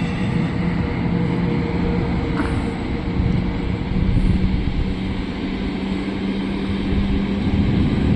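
A passenger train passing at speed, with a steady rumble of wheels on the rails and a steady low hum running under it.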